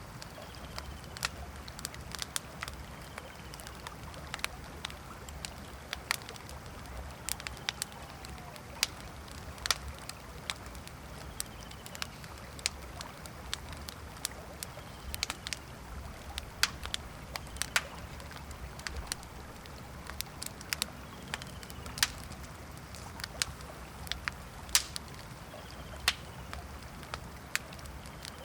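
Wood campfire crackling, with sharp pops at irregular intervals, several a second at times, over a steady low rush of flowing river water. A faint short falling chirp recurs every few seconds.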